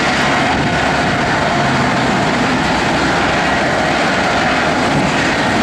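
Boeing 747 Shuttle Carrier Aircraft's four turbofan engines running at taxi power: a loud, steady rush of jet noise.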